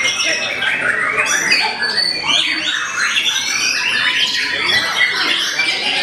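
Several caged white-rumped shamas (murai batu) singing at once: a dense, unbroken tangle of overlapping whistles, rising and falling slurs and chattering phrases.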